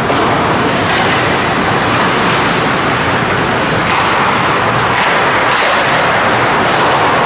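Steady rushing background noise of an indoor ice rink during a hockey game, with a few faint clicks from play on the ice.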